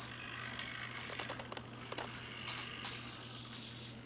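Rapiro robot's small hobby servos whirring and clicking as it turns its body to the left, over a steady low hum.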